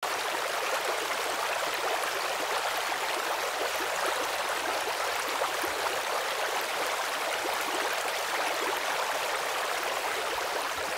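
Steady, even hiss with a fine crackle, mostly high in pitch with little bass.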